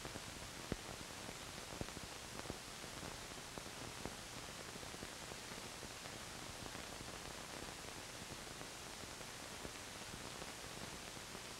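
Steady hiss of an old film soundtrack, with a few faint clicks in the first few seconds.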